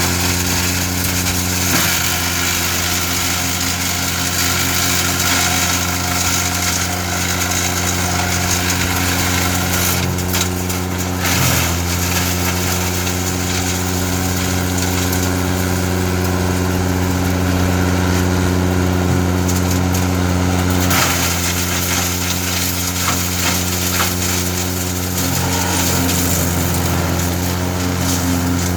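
Steiner 450 tractor running steadily, driving a wood chipper that is chipping brush, with a few brief cracks as branches are fed through.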